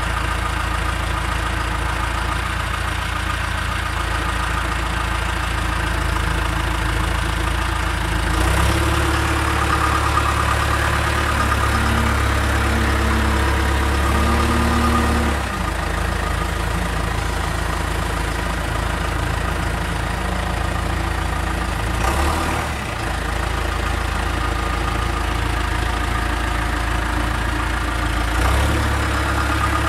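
Backhoe loader's diesel engine running steadily, its note changing and growing a little louder from about nine to fifteen seconds in as the machine is worked, with shorter changes near the end.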